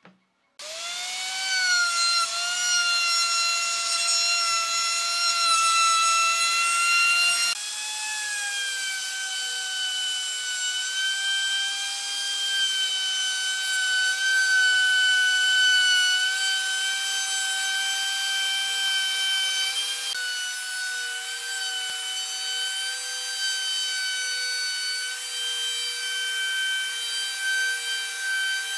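Electric handheld router running with a high whine as its bit cuts along the edge of an end-grain wooden tabletop; it starts abruptly about half a second in, and the pitch wavers slightly as the bit takes the wood.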